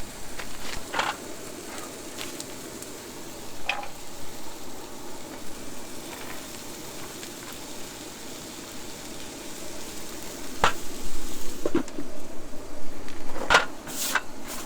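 Hamburger patties sizzling in a pan over a campfire, with a few sharp clicks and scrapes; the sizzle gets louder for the last few seconds.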